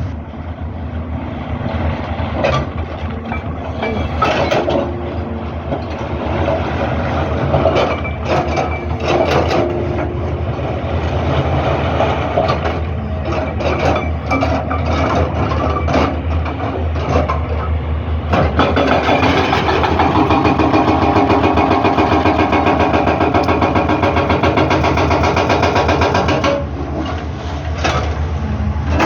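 Excavator's diesel engine running steadily, with scattered knocks and clanks through the first half. About two-thirds of the way in the engine runs harder and louder for several seconds, then eases back near the end.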